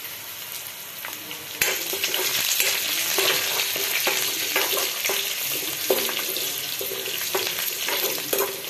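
A tadka of green chillies and curry leaves sizzling in hot oil in a steel kadhai, stirred with a steel ladle that scrapes and clinks against the pan over and over. The sizzle grows louder about one and a half seconds in.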